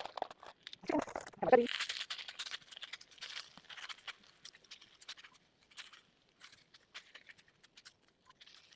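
Kitchen handling sounds: scattered clicks, scrapes and rustles, busiest in the first few seconds, with the loudest scrape at about a second and a half in.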